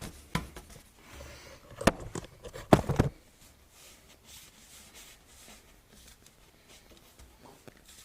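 A few sharp knocks and clatters of objects being handled, the loudest about two and three seconds in, followed by quiet room noise.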